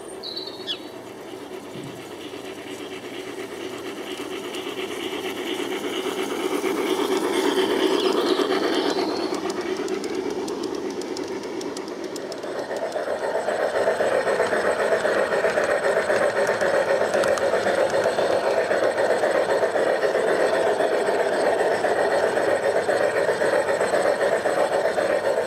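G-scale model train wheels rolling along garden track, swelling to a peak about a third of the way in and easing off as the train passes. About halfway in the sound becomes a louder, steady rolling rumble, heard from on board the moving train.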